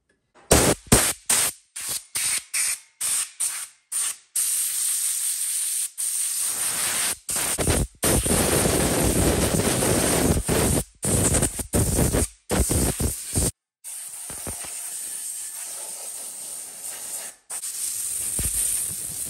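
Air duster blowing dust off a crypto miner's circuit board and metal parts. It hisses in rapid short spurts for the first few seconds, then in longer blasts, and is quieter after about 14 seconds.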